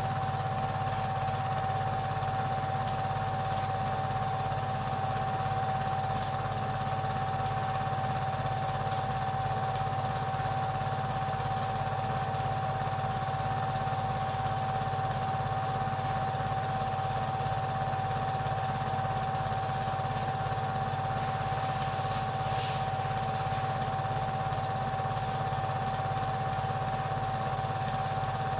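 Super 8 film projector running steadily: a constant motor whine and hum with a fast, even clatter from the film mechanism.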